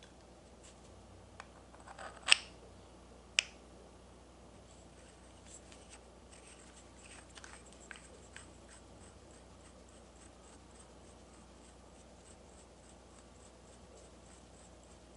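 Two sharp, short shots about a second apart from a Marzen Walther PPK airsoft pistol fitted with a silencer, with a few faint handling clicks around them.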